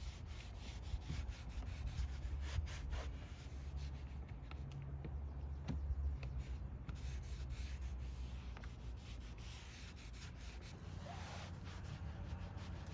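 Microfiber towel rubbing and wiping a plastic car door panel in repeated short, scratchy strokes, over a low steady rumble that eases off about halfway through.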